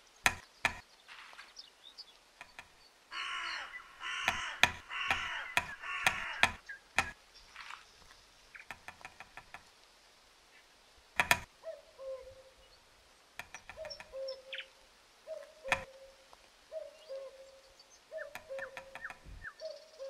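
Great spotted woodpecker tapping on dead wood in sharp, irregular knocks. Harsh, crow-like cawing calls come a few seconds in. In the second half, short low notes falling slightly repeat about once a second, with more scattered taps.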